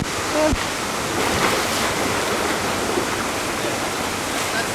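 Steady rush of running water at a waterslide, an even hiss with no breaks.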